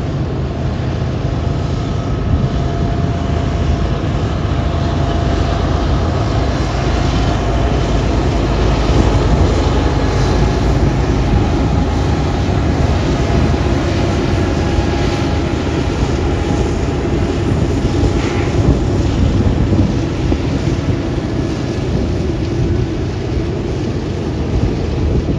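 Union Pacific freight train with a lashup of diesel locomotives passing: a loud, steady low rumble.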